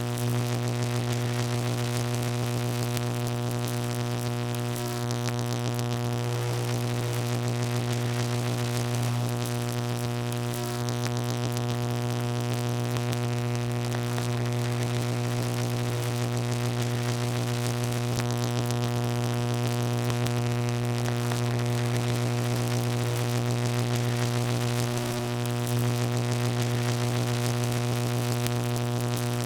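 Electrical buzz: a steady, unchanging hum with a strong low tone and a ladder of buzzy overtones above it, like mains electricity humming.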